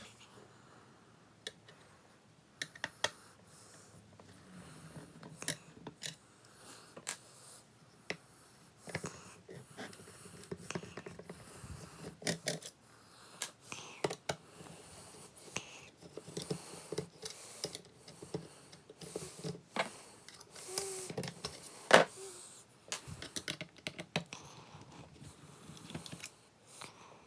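Irregular small clicks, taps and scrapes of hands and a small tool working on the plastic housing of a Nissan Skyline R34 GT-R's multi-function display unit as it is taken apart, with one louder click late on.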